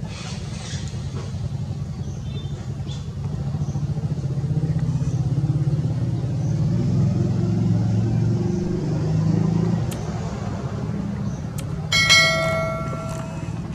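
A motor vehicle's engine running nearby, a steady low rumble that swells for a few seconds mid-way and then eases back. Near the end a sudden bright ringing tone sounds and dies away within about a second.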